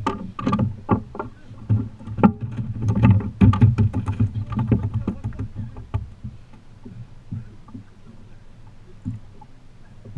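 A rapid, irregular run of knocks and thumps on a small fishing boat's hull and deck for about six seconds, then it goes much quieter.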